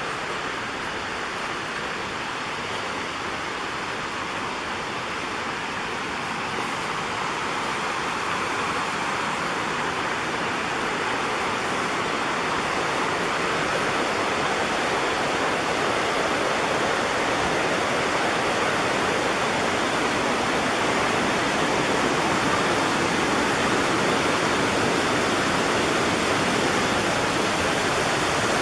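Fast-flowing creek rushing over rapids: a steady hiss of water that grows louder over the first half, then holds.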